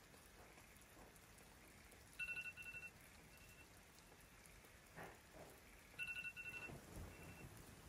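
Electronic wake-up alarm beeping in a quiet room: a quick run of beeps, then a single beep, the pattern repeating about every four seconds, starting about two seconds in.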